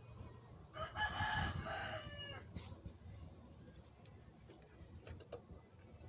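A rooster crows once, about a second in: one drawn-out call of about a second and a half that falls away at the end. A few faint clicks follow near the end as circuit boards and an audio cable are handled.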